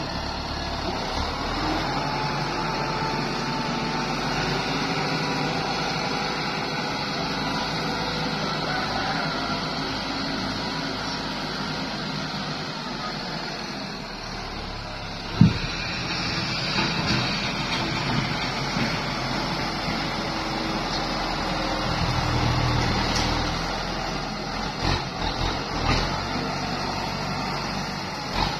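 Diesel farm tractor running steadily as it pushes and spreads laterite fill with its front blade, with a sharp knock about halfway through and a few dull thumps near the end.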